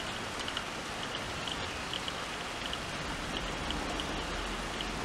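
Steady outdoor hiss that resembles light rain, with faint, short, high ticks repeating irregularly through it.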